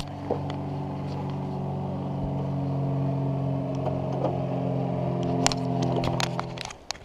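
Boat motor running steadily, shut off abruptly near the end, with a few sharp clicks just before it stops.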